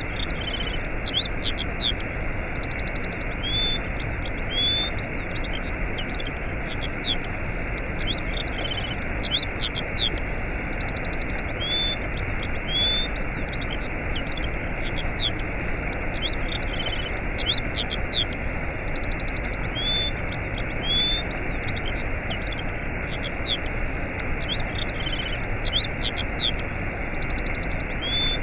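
Waterfall rushing steadily, with small birds chirping and trilling rapidly over it; the same bird phrases recur about every twelve seconds.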